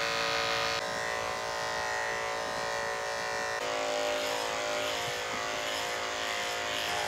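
Corded electric dog-grooming clippers running as they shave through a dog's curly coat: a steady motor buzz whose pitch shifts abruptly twice.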